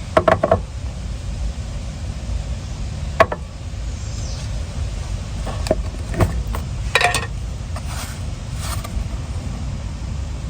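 Scattered light knocks and clinks, a few at the start and a small cluster about seven seconds in, over a steady low rumble.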